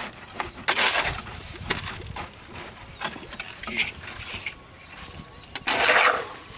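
A hoe scraping concrete mix into metal pans in a few short scrapes, and near the end a louder rush as a pan of the mix is tipped into a wooden form.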